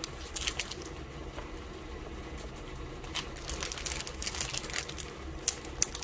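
Scattered light clicks and taps of small plastic Disney Doorables figurines being handled and set down on a tabletop, a few near the start and a cluster near the end, over a low steady hum.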